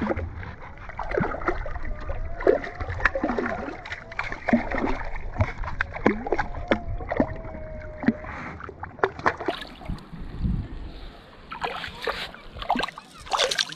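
A hooked fish splashing and thrashing at the water's surface as it is drawn in on the line, in a run of irregular sharp splashes over a low rumble.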